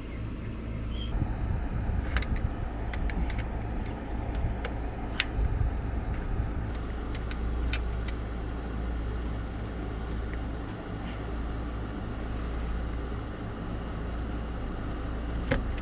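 Scattered sharp metallic clicks from a wrench snugging a new oil pressure sensor a little tighter, over a steady low rumble.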